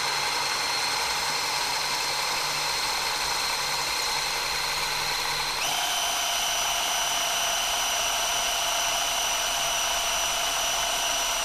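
Cordless drill running steadily as it drills a hole into the cast-iron table of a milling machine. Its whine shifts pitch once about halfway through.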